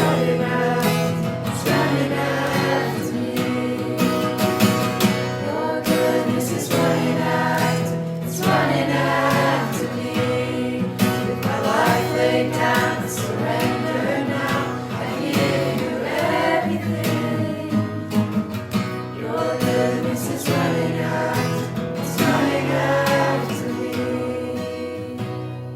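Group of voices singing a Christian worship song together, accompanied by strummed acoustic guitar.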